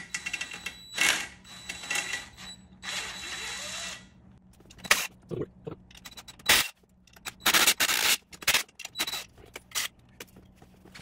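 A cordless power tool runs in several short bursts, spinning out the bolts that hold the clutch pressure plate to the flywheel. Then come sharp metal clanks and knocks as the loosened plate and bolts are handled.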